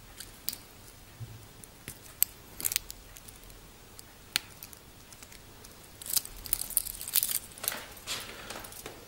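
Handling noise from a steel watch bracelet and clasp: several sharp metal clicks in the first half, then a denser stretch of rustling and clicking about six seconds in.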